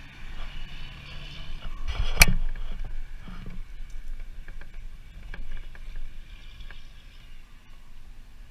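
Semi-truck on the nearby road, its low engine hum fading after the first second or two. A sharp knock about two seconds in, then scattered small knocks and scrapes.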